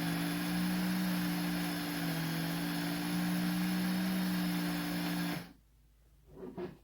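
Electric blade coffee grinder motor running steadily with a steady hum and whirring hiss, then switching off abruptly about five and a half seconds in, followed by a few faint light knocks.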